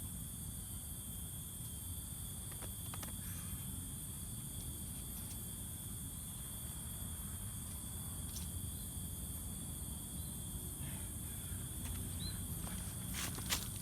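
Steady chorus of insects, a continuous high-pitched trill with a second, higher band above it, over a low rumble. A couple of sharp clicks come near the end.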